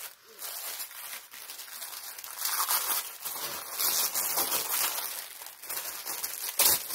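Plastic wrapping crinkling and rustling as it is handled and pulled open. It gets louder about two and a half seconds in, with one sharp crackle near the end.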